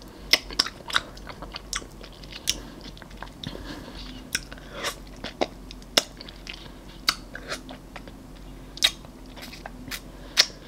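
Close-miked ASMR eating sounds: a banana ice-cream bar being bitten off its wooden stick and chewed, with irregular sharp wet mouth clicks and smacks.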